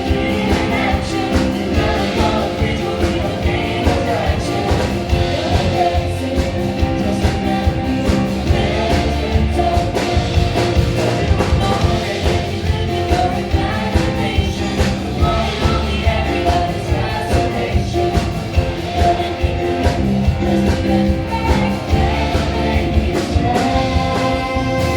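Music with a steady drum beat and singing.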